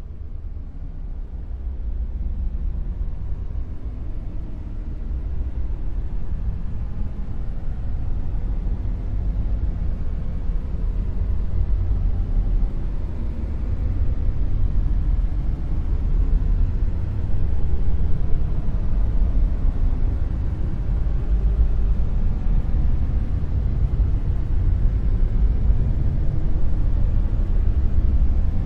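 Dark noise: a deep, steady rumble with no pitch, most of it very low, gradually growing louder.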